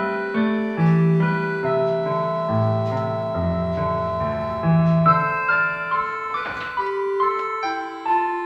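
Piano music playing a melody of held notes over low sustained bass notes.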